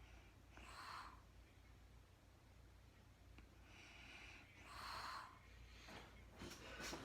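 A sleeping woman's breathing, faint: two soft breaths about four seconds apart. A few faint clicks come near the end.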